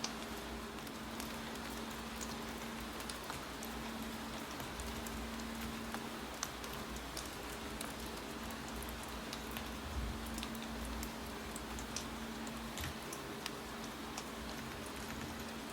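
Steady rain falling, with irregular light clicks of keyboard typing scattered throughout.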